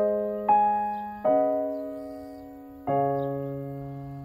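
Slow background piano music: a few chords struck at uneven intervals, each left to ring and fade.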